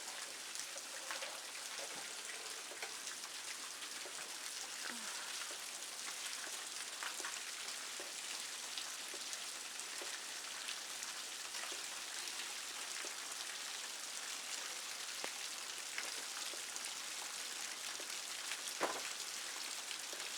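Steady rain falling, an even hiss speckled with the patter of individual drops, with one sharp tap near the end.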